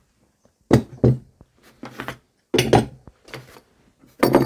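Heavy steel G clamps being lifted off and knocked against a wooden work surface: about six separate clunks and knocks, with a hollow woody thud under the clink of metal.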